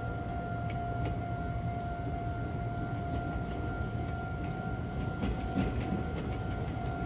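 Railway level-crossing warning signal ringing as a steady high tone, over a low rumble. From about five seconds in, an approaching train adds a run of rapid clicks as its wheels pass over the rail joints.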